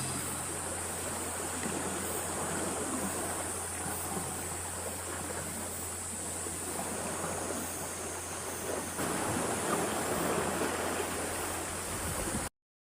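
Steady rushing wash of sea waves at a rocky shore, swelling slightly about nine seconds in and cutting off abruptly near the end.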